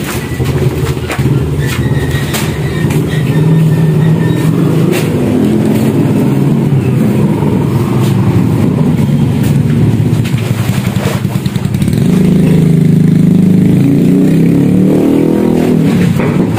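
Motorcycle engine running close by, its pitch rising and falling with the throttle; it gets louder and higher about twelve seconds in. A few sharp knocks sound along the way.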